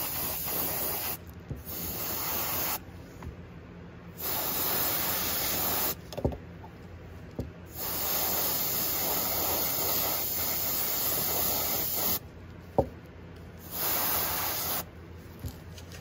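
Airbrush spraying paint in about five separate stretches of hiss, one to four seconds each, stopping and starting as the trigger is pressed and released. A couple of faint knocks fall in the pauses.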